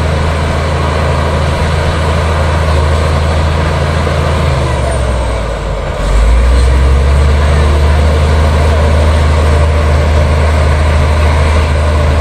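Liugong bulldozer's diesel engine running with a steady low drone. It eases off briefly about five seconds in, then comes back louder.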